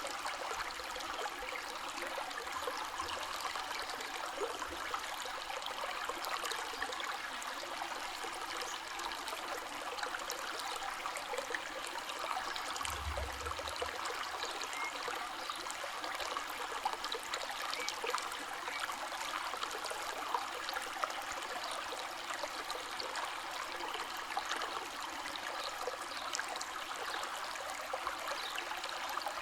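River water flowing steadily: a continuous rush with many small splashes.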